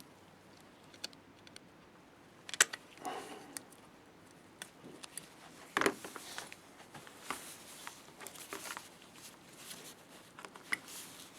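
Scattered small clicks and handling noises of hand screwdriver work: a 4mm screw being tightened into a terminal plug on a lamp assembly, with sharp clicks about two and a half seconds and six seconds in.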